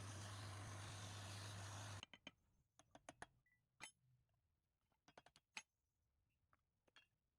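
Steady machine hum with hiss that cuts off abruptly about two seconds in, followed by scattered light clicks and taps, several in quick clusters.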